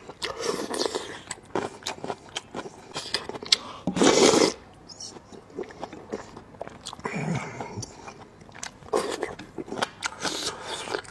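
Close-miked eating of spicy intestine noodles: chewing with many wet mouth clicks, and one loud, noisy, half-second burst about four seconds in.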